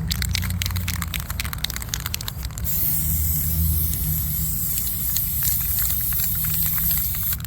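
Aerosol can of flat black spray paint. A quick run of clicks over the first couple of seconds, then a steady spray hiss that stops just before the end.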